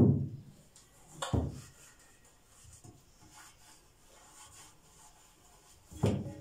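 A white plastic tub of ghee handled on a kitchen counter: a sharp knock at the start, another about a second later, soft rubbing and scraping in between, and a third knock near the end.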